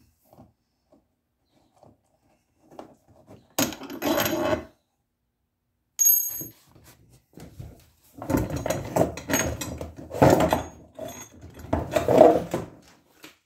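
Hard plastic and metal parts of a DIY kayak cart knocking and clattering as they are handled: PVC pipe legs pulled out of the kayak's scupper holes, and the cart's metal axle parts. There is a brief high metallic ring about six seconds in. The clatter grows denser over the last few seconds.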